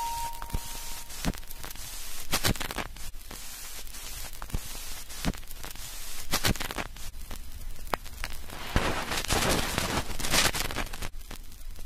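Crackling static with irregular sharp clicks and pops, a noise texture in an electronic music track, as a bell-like synth tone dies away near the start. The hiss thickens into a louder noisy swell near the end.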